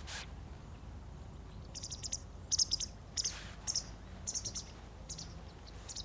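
A small bird calling: short clusters of rapid high chirps repeated roughly twice a second, starting about two seconds in.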